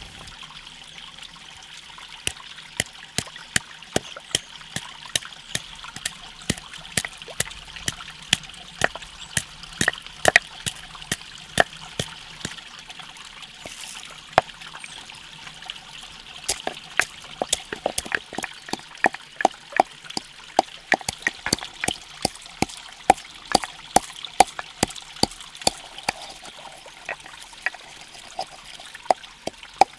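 Whole spices (cinnamon, cloves and cardamom) clicking and knocking in a wooden mortar as they are broken, dropped in and pounded with a wooden pestle, several sharp clicks a second. A stream trickles steadily underneath.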